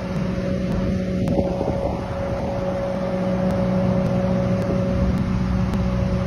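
An engine running at a steady speed, a constant hum that neither rises nor falls.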